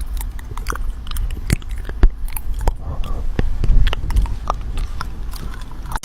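Close-up chewing: irregular sharp crunches and clicks of an animal biting into something hard, over a low rumble of handling noise.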